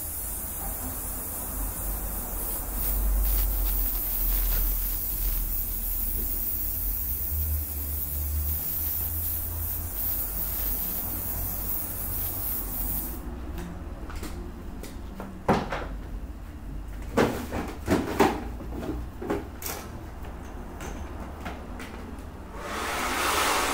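Aerosol hairspray hissing onto hair for about the first half. Then several sharp clicks and knocks, and near the end a hand-held hair dryer switches on and blows steadily.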